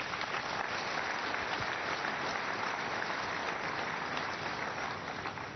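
Congregation applauding steadily, a dense mass of hand claps.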